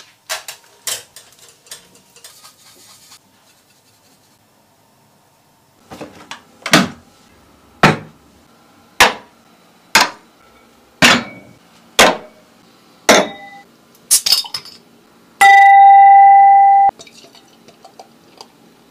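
Plates and dishes set down one after another on a hard table, a sharp clack about once a second, seven or eight times. Near the end comes one long, steady electronic beep.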